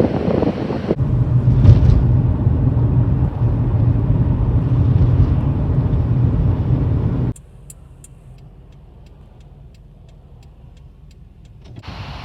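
Strong wind rushing and buffeting the microphone, cut to a steady low rumble. About seven seconds in it drops abruptly to a quiet stretch with faint regular ticks, about three a second, and near the end the wind rush returns.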